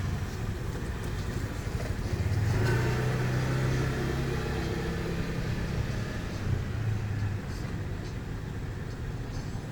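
A vehicle engine running steadily with a low hum, a little louder a couple of seconds in.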